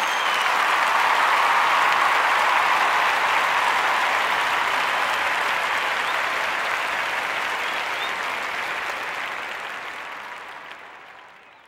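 Crowd applause: dense, steady clapping with a few short whistles, fading out over the last couple of seconds.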